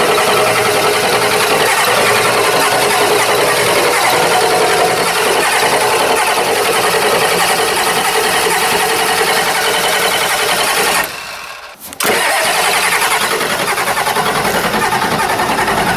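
Naturally aspirated 7.3 IDI International Harvester diesel in a 1990 Ford F-Super Duty being cranked over at length and slow to fire: a hard start that the owner counts as a sign of a dying injection pump. The sound drops out for about a second two-thirds of the way through, then carries on.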